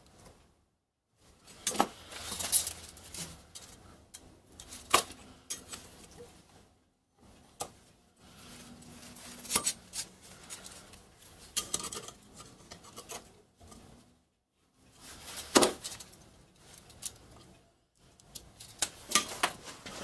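Steel hand tools (a combination square and a scriber) clinking, tapping and scraping against a steel plate and the workbench as the plate is marked out: scattered sharp clicks and clinks with scraping strokes between them.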